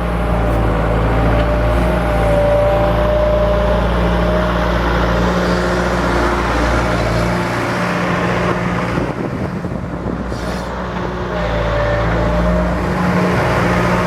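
1999 John Deere 160LC excavator's diesel engine running steadily, with a whine above the engine note. The engine eases off for a few seconds about halfway through, then picks up again.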